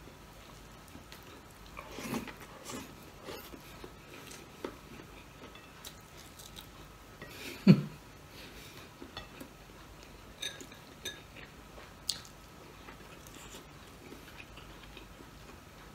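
A person eating with his hands: chewing and mouth noises, with fingers picking rice and vegetables off a ceramic plate and scattered light clicks of plate and glassware. One louder thump stands out near the middle, with smaller knocks about two seconds in and near twelve seconds.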